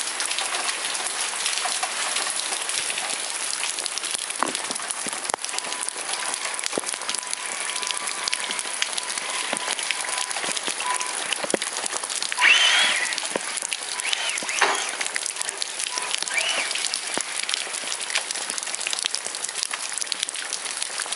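Heavy rain pattering and splashing on wet tiled paving close to the microphone, a dense steady hiss of many small drops. A few brief sounds that rise and fall in pitch come through near the middle, the loudest about twelve seconds in.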